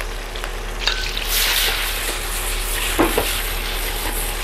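Bell pepper strips sizzling in hot oil and butter in a non-stick pan. The sizzle swells about a second in as more strips drop in, with a few knocks and scrapes of a wooden spatula stirring them.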